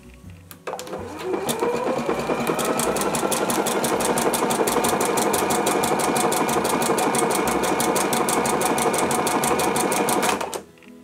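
Electric home sewing machine stitching a seam in cotton: the motor starts about a second in with a rising whine as it speeds up, runs at a steady fast, even stitch rhythm, then stops suddenly near the end.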